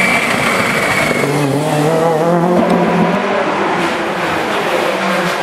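Rally car engine revving hard through the gears on a stage, its pitch rising and falling several times in the middle.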